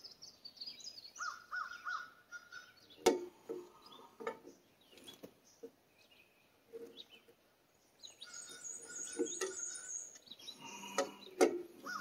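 Birds chirping, with a couple of sharp metallic clinks from pipe wrenches on brass well-tank fittings as they are tightened, one about three seconds in and another near the end.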